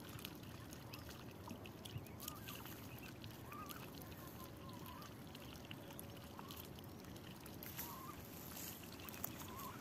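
Mallard hen and ducklings dabbling for oat flakes at the water's surface: faint wet clicks and small splashes from their bills, with short soft calls every second or two.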